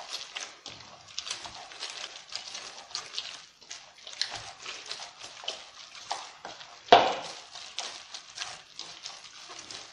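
Hands kneading soft, oily bread dough in a bowl: irregular wet squelching and slapping as the freshly added oil is worked in, with one louder thump about seven seconds in.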